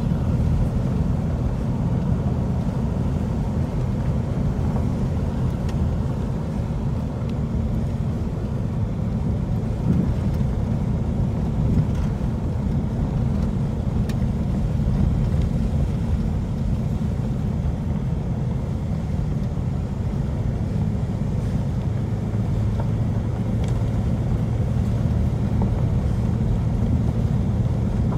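Vehicle driving along a dirt road, heard from inside the cabin: a steady low rumble of engine and tyres, with a couple of brief knocks about ten and twelve seconds in.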